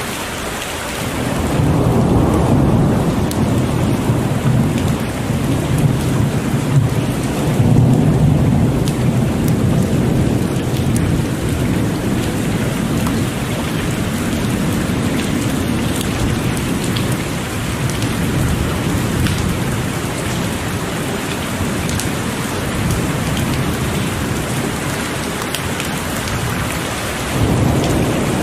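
Heavy rain pouring steadily, with long, rolling thunder rumbling low beneath it: a swell about a second and a half in, a louder one around eight seconds, easing off through the middle, and another rumble building near the end.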